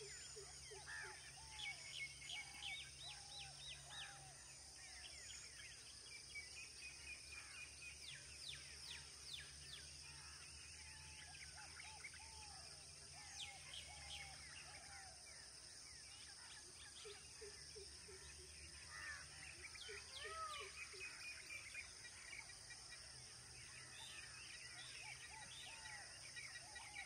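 Faint birdsong: many birds chirping and calling, with a lower arched note repeated in short runs of several notes, over a steady hiss.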